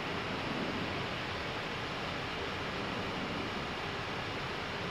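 Steady rushing background noise in an Airbus A319 cockpit during an idle-thrust descent: the even hiss of airflow and cabin ventilation.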